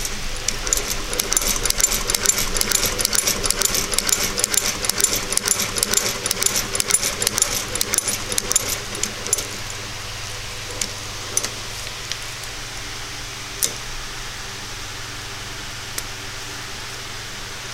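Happo sewing machine stitching thick material: a rapid run of needle and mechanism clicks for about nine seconds, then it stops, leaving a steady low hum with a few single clicks.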